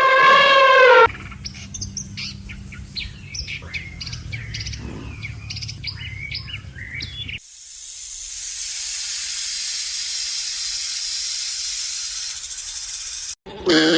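A loud pitched animal call for about a second, then a bird chorus of many short chirps for about six seconds, then a steady hiss.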